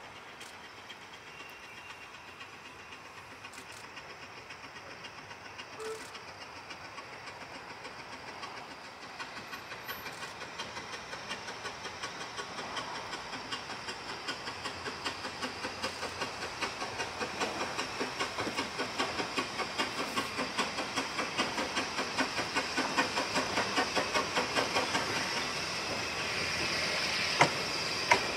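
Narrow-gauge steam locomotive Welsh Pony approaching under steam: a steady chuff of exhaust beats, about two a second, growing louder as it draws near, with steam hiss. Two sharp knocks near the end.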